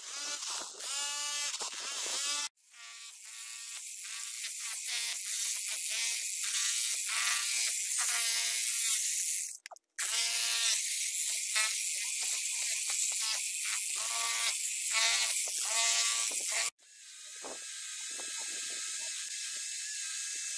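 Electric demolition hammer chiselling old plaster off a stone wall, in several cut-together stretches. From about 17 s in, a cordless drill spins a wire wheel brush against a rusty iron pipe with a steady high whine, scrubbing off the rust.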